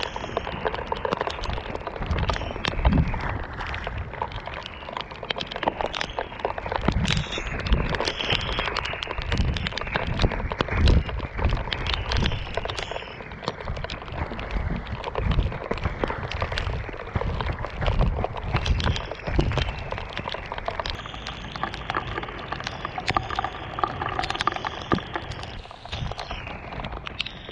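Powerslide Imperial SUV off-road inline skates rolling on their tyres along a muddy trail: a continuous rough rumble full of irregular crackles and low thumps.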